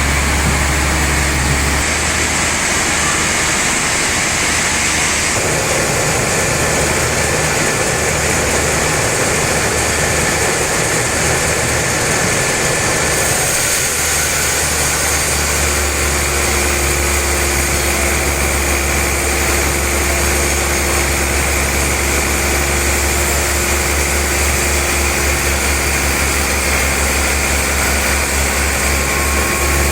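Sawmill machinery running steadily with a strong low hum and a hiss over it. Its sound changes character a few times: about two seconds in, about five seconds in, and around halfway, when a steady mid-pitched tone joins.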